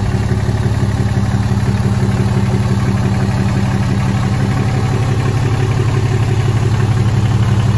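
Idling 6.7-litre Cummins inline-six turbo diesel of a 2018 Ram 2500, running steadily with a fast, even pulse.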